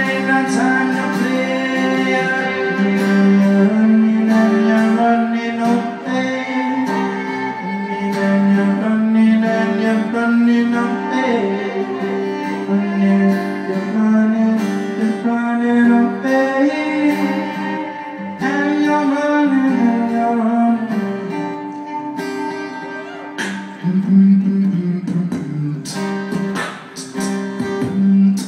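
Music led by guitar, with sustained string tones.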